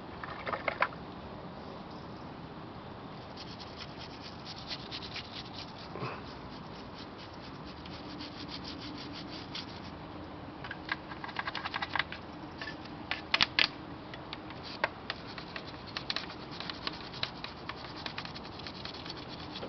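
Irregular scratching and rubbing as a motorcycle is wiped and scrubbed by hand during detailing. The strokes come in short, uneven bursts that grow busier after about ten seconds.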